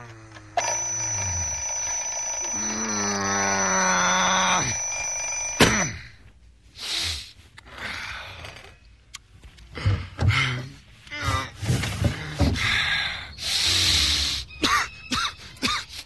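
An electronic alarm ringing steadily with a high whine for about five seconds, cut off abruptly by a knock, with a person's drawn-out voice sounding under it. Then a run of short, irregular sounds follows.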